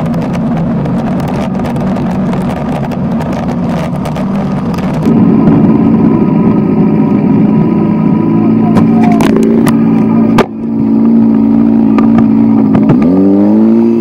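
A rally car's engine running hard on an ice track, heard onboard over heavy road noise. About five seconds in it gives way to a kart cross buggy's motorcycle-type engine running at steady high revs, with a quick rev up and down near the end.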